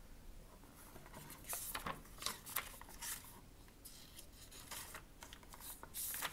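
Paper pages of a picture book being turned and handled: a string of crisp rustles and flaps, loudest between about one and a half and two and a half seconds in and again near the end.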